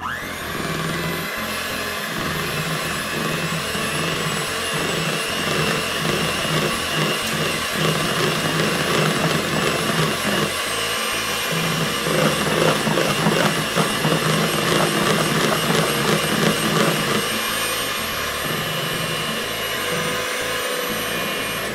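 Electric hand mixer running steadily, its twin beaters whipping a thin beer batter in a bowl.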